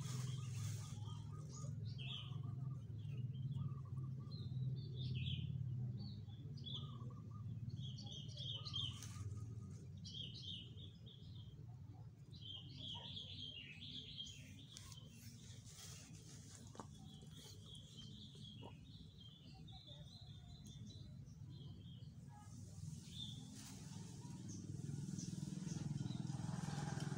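Small birds chirping in short, repeated calls, over a low steady hum that weakens about nine seconds in and strengthens again near the end.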